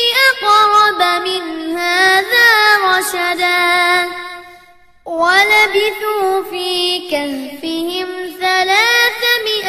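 A child's high voice reciting the Quran in slow, melodic murattal style, with long held and gliding notes. It fades out a little past four seconds in, breaks briefly for breath, then starts the next verse.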